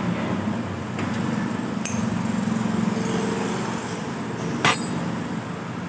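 Metal-on-metal clinks of hand tools working on a scooter engine being taken apart, with one sharp clank about three-quarters of the way through, over a steady background hum.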